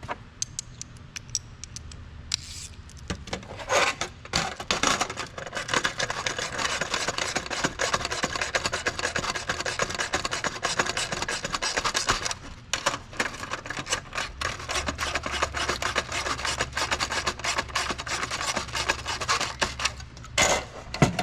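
Lock nuts being tightened onto mounting studs with a hand tool: a long run of rapid clicking and rasping, broken by a short pause partway through, then resuming.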